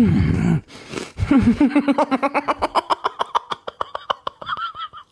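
A man laughing, stifled behind his hand: a voiced sound falling in pitch at the start, then a quick run of short giggles.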